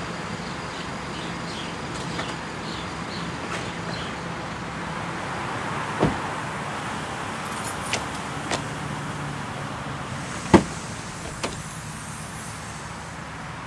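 A Honda Crossroad rolls up and stops with its engine running steadily, then a series of sharp clicks and one louder clunk about ten seconds in as its rear tailgate is unlatched and swung open.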